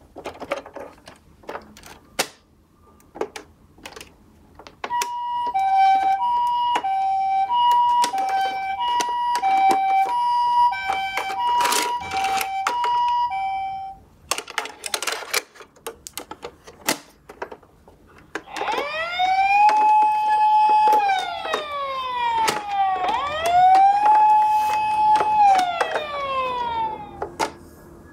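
Toy ambulance minicars clicking and clattering as they knock about and roll, with an electronic Japanese-style two-tone ambulance siren alternating high and low, about one pair a second, from about five seconds in to the middle. Near the end a wailing siren rises, holds and falls, twice.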